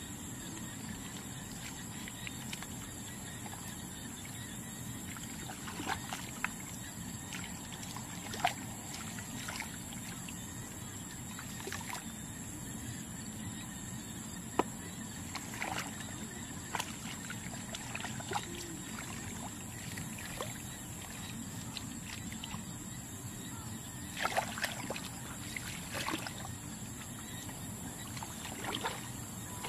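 Shallow muddy water sloshing as someone wades and gropes through it by hand, with scattered short splashes, over a steady background hiss.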